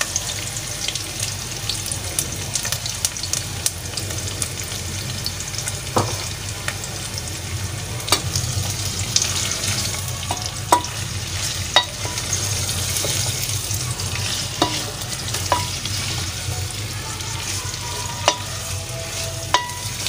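Freshly added sliced onions sizzling steadily in hot oil while a wooden spoon stirs them, knocking against the pan every second or two.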